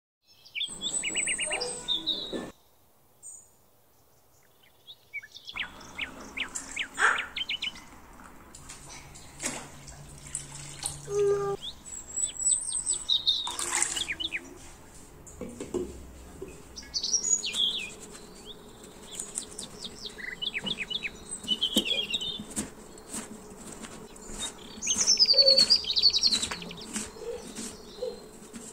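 Birds chirping and singing off and on, loudest near the end, over kitchen work: water poured onto beans in an enamel pot, knocks and clinks, and near the end a knife cutting potatoes on a plastic board. A short burst of sound plays over the opening logo.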